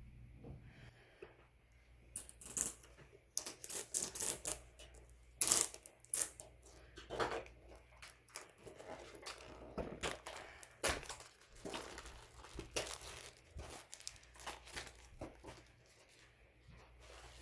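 Hands tearing open and handling a retail box of hockey trading cards: a long run of irregular ripping, crinkling and crackling of cardboard and wrapping.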